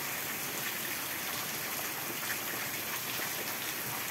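Heavy rain falling steadily, an even hiss with faint scattered drop ticks.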